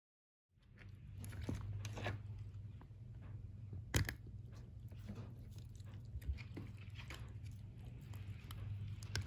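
Shiba Inu gnawing a rubber dental chew ball: irregular crunchy bites and teeth clicking on the rubber, with one sharp knock about four seconds in. A low steady hum runs underneath.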